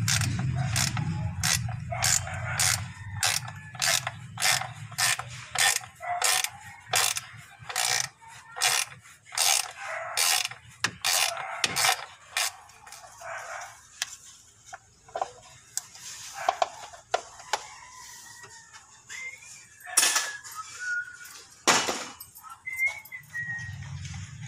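Hand ratchet wrench clicking in quick strokes as a bolt is turned on the timing-belt end of a Toyota 2C engine, about three clicks a second for roughly the first half. After that come a few scattered, louder clicks.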